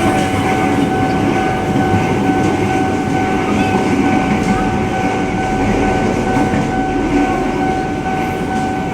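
Airport rail link train running: a steady rumble with a constant high-pitched whine.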